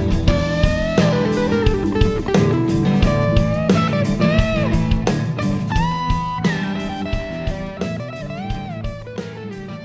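A band playing an instrumental passage: lead electric guitar playing notes that bend up and down, over bass guitar and drums. The music gets gradually quieter throughout.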